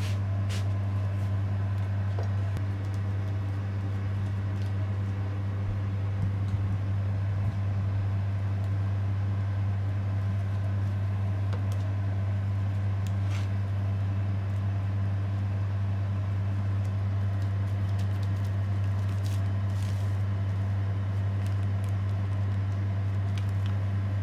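Steady low machine hum with no change in level, with a few faint light clicks of handling over it.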